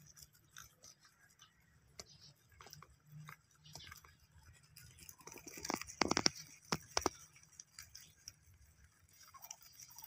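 A group of domestic rabbits chewing and tearing fresh-cut grass, a continuous soft crunching and rustling of grass stems, with a louder flurry of sharp crunches about six seconds in.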